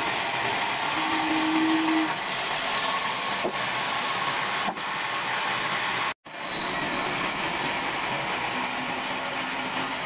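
Sawmill band saw running and cutting lengthwise through a log, a steady dense whirring hiss of the blade in the wood, with a short low hum about a second in. The sound drops out for an instant a little after six seconds.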